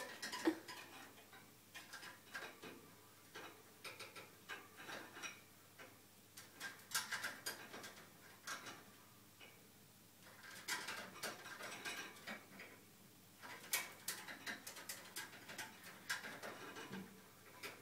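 Quaker parrot handling its building material: light irregular clicks, taps and scraping, coming in short spells with pauses between.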